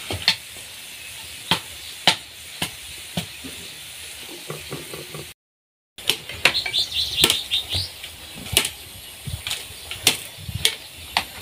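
Sausages sizzling in a frying pan, with sharp clicks of metal tongs against the pan as they are lifted out. The sound cuts out for a moment a little past halfway, then more tong clicks as the sausages are set on a metal plate.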